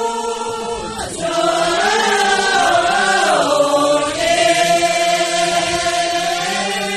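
A group of voices singing together in unison, drawing out long held notes that glide slowly up and down.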